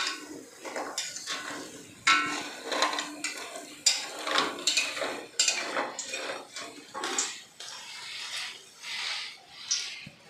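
Stainless-steel spatula and perforated skimmer knocking and scraping against a stainless-steel wok as fried wonton-skin sticks are scooped out of the oil, with repeated sharp metal knocks.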